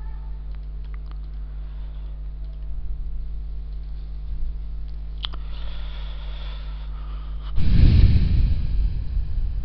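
Steady low electrical hum on the recording microphone, with a few faint clicks, then a loud rushing noise about three-quarters of the way through, heaviest in the low end and fading over about two seconds.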